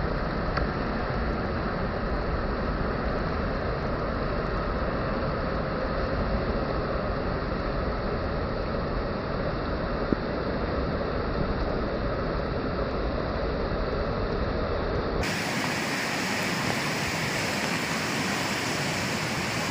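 Fast, storm-swollen floodwater rushing and churning over rocks in white-water rapids, a steady, dense rushing noise. About fifteen seconds in it turns brighter and hissier, with less low rumble.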